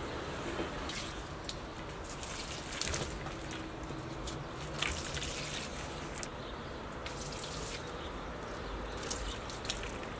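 Water poured from a jug onto potted plants, trickling and dripping onto leaves and soil in irregular patters.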